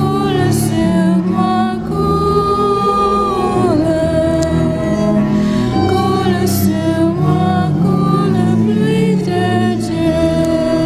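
Worship song: voices singing a slow, sustained melody over steady bass notes and instrumental accompaniment.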